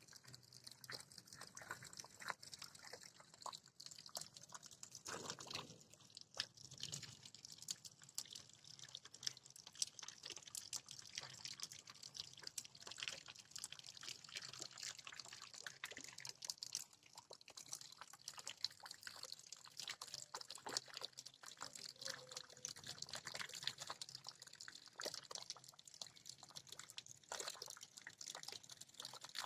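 Rain falling steadily, with many small drops dripping and splashing.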